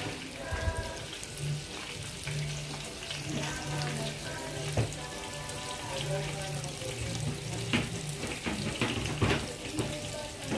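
Hot oil sizzling steadily as spring rolls (lumpiang Shanghai) deep-fry in a pan, with a few sharp clicks.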